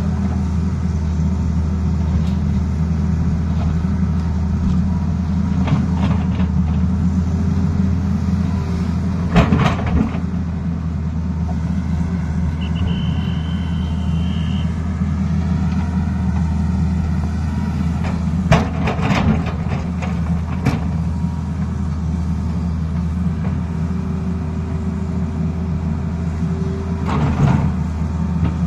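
Tata Hitachi 220 excavator's diesel engine running steadily with a deep hum while the bucket digs rocky soil. A few sharp knocks of the bucket against rock come through, the loudest about nine seconds in, with others near nineteen and twenty-seven seconds.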